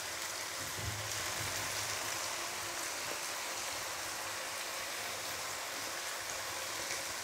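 Chili sambal with petai (stink beans) simmering in oil in a wok over a low flame: a steady sizzle.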